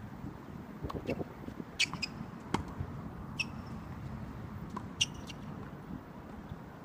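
Tennis rally on a hard court: a tennis ball struck by racket strings and bouncing, heard as about four sharp pops over a few seconds, some with a brief high ring, along with lighter footfalls.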